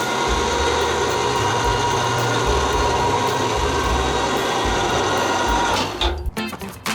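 A power tool's motor running steadily with a constant pitch. Just before six seconds in it stops, and a rhythmic music track takes over.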